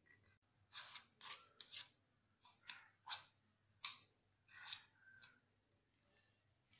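Metal ladle scraping and stirring thick lemon pickle in oil around a nonstick kadai: about a dozen short, faint scrapes, roughly two a second, with brief pauses between them.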